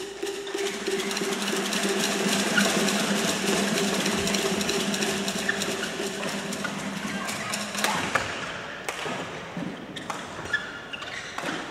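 Badminton rally: sharp racket hits on the shuttlecock and shoes squeaking on the court floor, over the din of a large echoing sports hall. A steady low hum runs under it for the first eight seconds or so.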